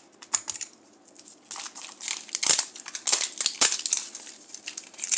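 Plastic wrapping on a Toy Mini Brands capsule ball crinkling and tearing as fingers pick at and peel it, in irregular bursts that are busiest through the middle, with a couple of sharper snaps.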